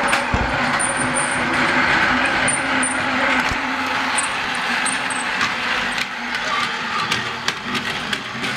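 Battery-powered LEGO Duplo toy train's electric motor whirring steadily as it runs along plastic track, with clicks that become more frequent in the second half.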